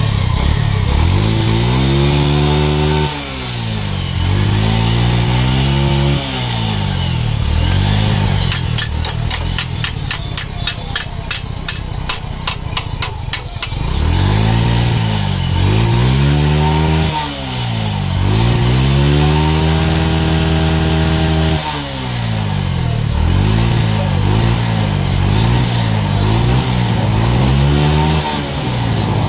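Yamaha 110cc single-cylinder four-stroke motorcycle engine, freshly rebuilt with new piston rings, valves and gaskets, running and being revved up and back down again and again. In the middle the revving stops for about five seconds and a quick ticking comes through, about five ticks a second.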